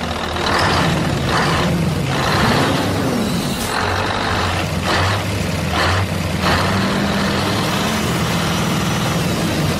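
Heavy truck engine running steadily, with several short bursts of hiss like air brakes, about one a second, over the first seven seconds.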